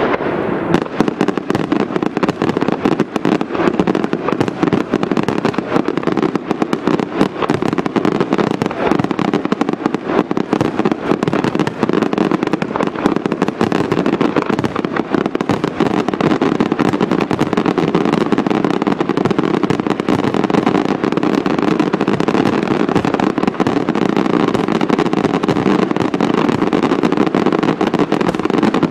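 Aerial firework shells bursting in a dense, continuous barrage, countless rapid reports running together without a break.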